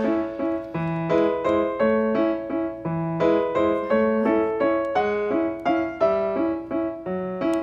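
Background music: a piano playing a steady, even run of notes with chords underneath.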